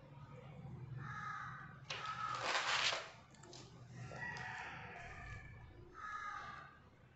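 Paper rustling as a page of a spiral-bound notebook is turned, loudest about two to three seconds in. A few short bird calls sound in the background, before and after the rustle.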